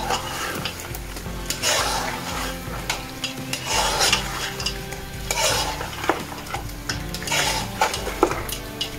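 A metal spoon scrapes and stirs lamb chops and ground spices frying in an aluminium pot, over a steady sizzle, with a scrape every second or two as the spoon drags across the pan.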